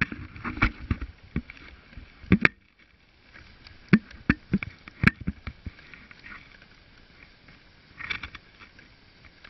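Wooden basket dog sled running along a packed snow trail, its frame and runners giving irregular sharp knocks, creaks and rattles, with short scraping stretches.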